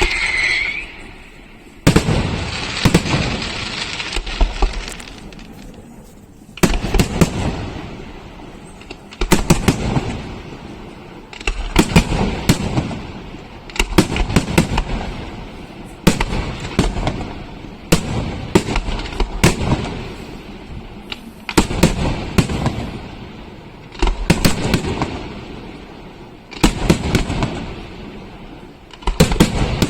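Aerial firework shells bursting in a steady sequence, a loud bang roughly every two seconds, each trailing off in an echoing rumble with crackling.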